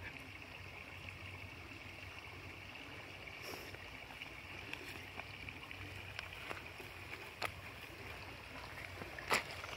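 Quiet pond-side ambience with a steady faint high hum, a few small clicks, and one short sharp bang about nine seconds in: a gunshot from bird hunters shooting nearby, which the fishermen react to as a loud bang.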